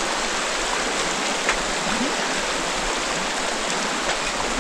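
The shallow upper Hudson River rushing over rocks: a steady, even rush of water.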